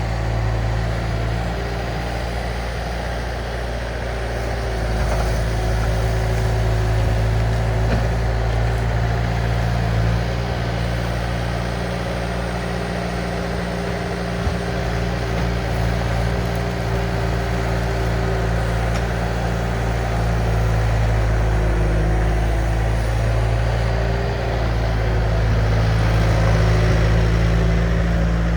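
Diesel engine of a compact earthmoving machine running steadily while working, its load swelling and easing a little every several seconds.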